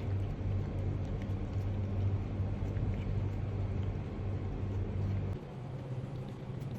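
A motor vehicle's engine running steadily with a low drone, dropping off sharply in level about five seconds in.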